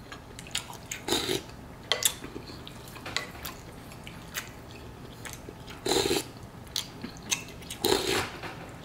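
Chopsticks and a soup spoon clicking and scraping against a ceramic bowl of pho, with a few short slurps of noodles and broth.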